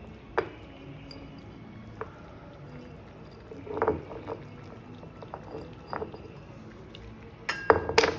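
Metal cookware knocks and clinks: a utensil against a kadai on the stove, over a steady low background noise. The strokes come singly at first, bunch up in the middle, and the loudest cluster comes near the end.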